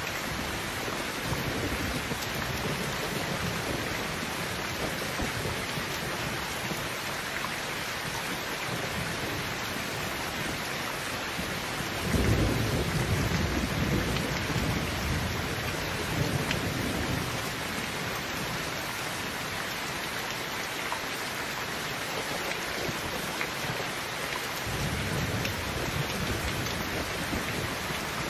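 Heavy rain falling steadily. About twelve seconds in, a low rumble of thunder starts suddenly and fades over several seconds, and a softer rumble comes near the end.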